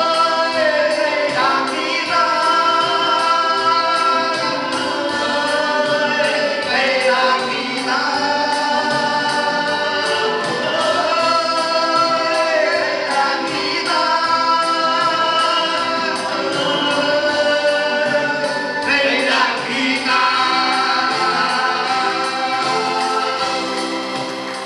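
A group of men singing a song together through a PA system over acoustic guitar accompaniment, the voices held in long sustained notes; the song winds down near the end.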